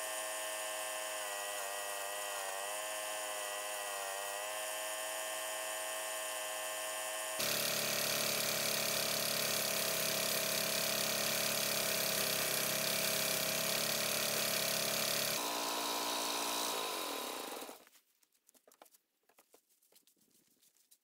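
Homemade wooden buckwheat thresher belt-driven by a Kentavr 1081D diesel walk-behind tractor, running steadily with a mechanical whine as sheaves are fed through. About three-quarters through, the pitch falls as the machine slows to a stop, leaving near quiet with a few faint rustles.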